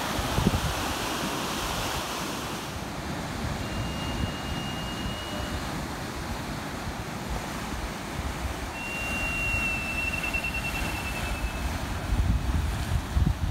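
Heavy surf from typhoon swell churning and washing over rocks against a concrete breakwater, with wind buffeting the microphone. The buffeting grows gustier near the end. A faint thin high whistle sounds twice.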